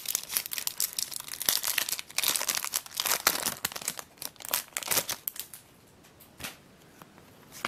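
Shiny foil wrapper of a trading-card booster pack crinkling and tearing as it is torn open by hand. The crackling is dense for about five seconds, then dies down, with one more brief rustle near the end.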